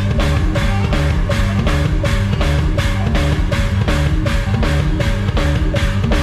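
Live band playing up-tempo music, the drum kit driving a fast, steady beat under bass and guitar.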